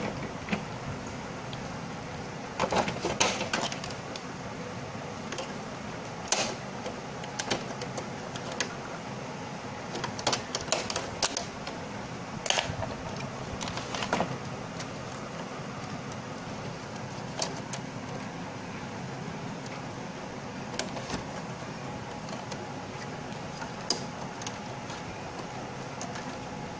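Irregular plastic clicks and knocks from parts of an opened Epson L565 inkjet printer being handled and fitted back together, over a steady background hiss.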